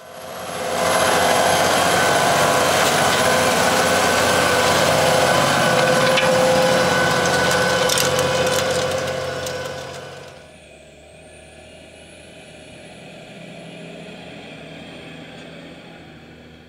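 Massey Ferguson 8680 DynaVT tractor's diesel engine running steadily under load with a high whine, working a Köckerling seedbed cultivator. About ten seconds in the sound drops sharply and carries on much quieter.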